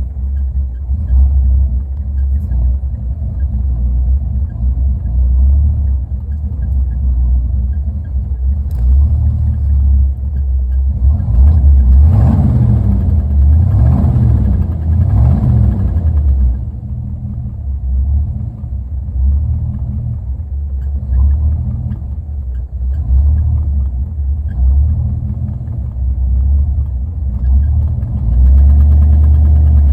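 Car engine idling roughly, its low rumble rising and falling unevenly. About halfway through it is revved up and down a few times, and near the end it settles into a louder, steadier run.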